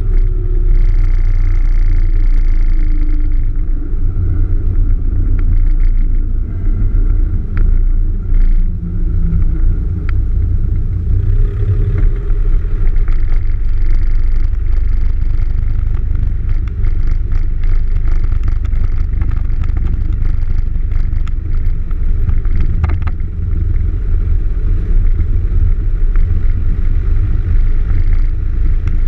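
Cessna 172's engine and propeller running at low power as it rolls out after landing and taxis, heard inside the cockpit as a loud, steady low drone.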